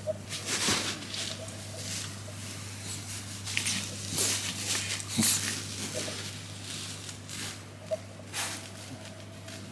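A Shiba Inu making short, irregular noisy sounds as it moves about, over a steady low hum.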